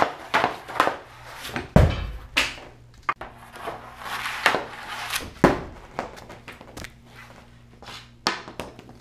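Ice hockey shots off a plastic shooting pad: the stick blade scrapes across the pad and clacks sharply against the puck, over and over. There are heavy thuds at about 2 and 5.5 seconds.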